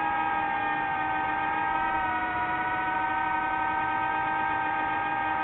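DJI FPV drone's motors and propellers whining steadily in flight, several close pitches sounding together, which dip slightly about two seconds in as the throttle eases.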